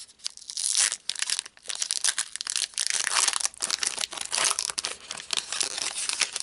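Foil Pokémon TCG booster pack being torn open, its wrapper crinkling densely from about half a second in until just after the end.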